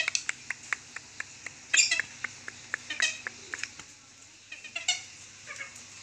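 Purple swamphen (mandar besar) giving a string of short, sharp 'kekek' calls a fraction of a second apart, with louder bunches about two, three and five seconds in. The keeper gives this as the call of a hen starting to lay, the same call used to draw a male for mating.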